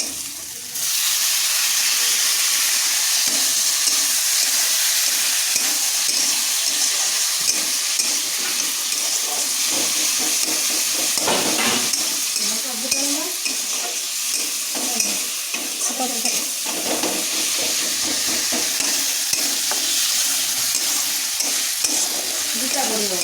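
Food frying in hot oil in a pan: a loud sizzle starts suddenly about a second in and keeps going, with a spatula stirring and scraping against the pan.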